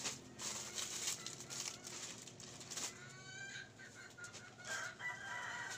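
A chicken calling twice, once about three seconds in and again near the end, fairly faint. Before the calls, plastic packaging rustles and crinkles as items are handled.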